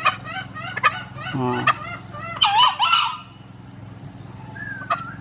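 Green junglefowl calling: a run of short quick notes for the first two seconds, then a loud harsh two-part crow about two and a half seconds in, over a steady low hum.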